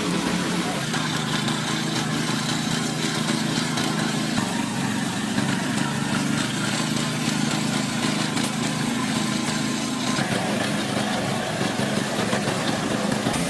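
A heavy machine's engine running steadily under a constant hiss of machinery noise.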